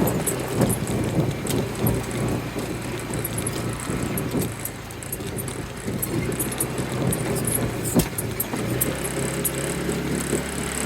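A vehicle engine running steadily, with light rattling and clicking over it and one sharp knock about eight seconds in.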